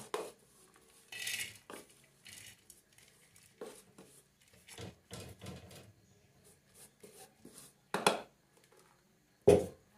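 Crushed cupuaçu seeds being scraped out of a metal pot into a small frying pan: scattered metal-on-metal scrapes and clinks with a short rustle of the seeds going in. A sharp knock near the end is the loudest sound.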